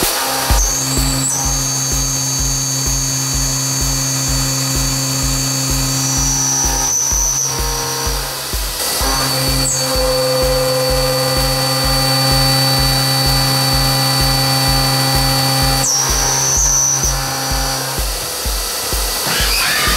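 Dugard 500A vertical machining centre cutting steel: a steady high spindle and cutter whine that breaks off and resumes a few times between passes, under background music with a steady beat.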